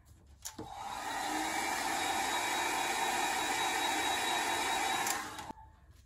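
Handheld hair dryer blowing steadily on alcohol ink to push and dry it: switched on about half a second in and cut off sharply shortly before the end.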